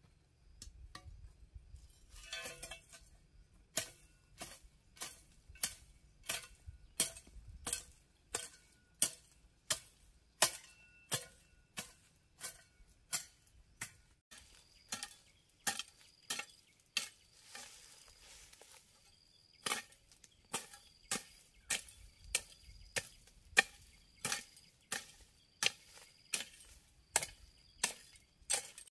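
A metal hand tool striking over and over, about one and a half strokes a second, many strokes with a short metallic ring. A brief rustle comes just before the strokes start.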